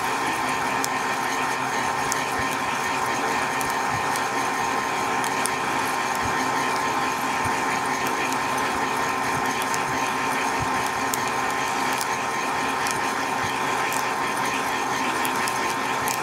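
Hot-air popcorn popper roasting coffee beans: the fan and heater run with a steady whir and hum while the beans give scattered faint snaps, like puffed rice cereal. This is second crack, the roast stage where the beans' natural oils come out.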